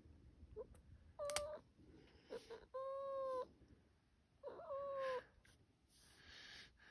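Domestic cat meowing three times, complaining at being held for a nail trim. The middle meow is held at a steady pitch.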